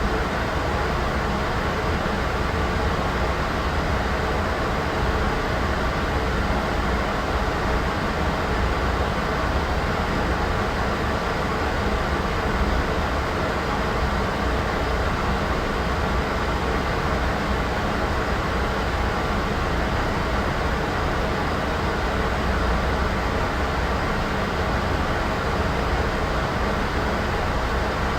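Steady white noise: an even, unchanging hiss, heavier in the low end.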